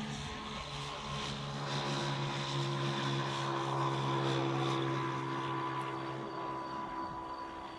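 Engine drone of a passing vehicle or aircraft: a steady low hum over a hiss that swells to a peak about halfway and then fades, its pitch dropping slightly as it goes.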